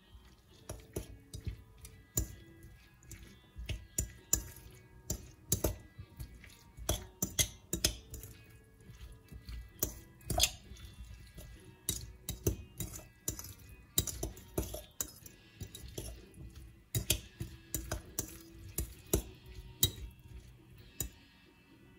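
A metal fork stirring chopped cucumber and dill in a glass bowl, clinking irregularly and often against the glass, over quiet background music.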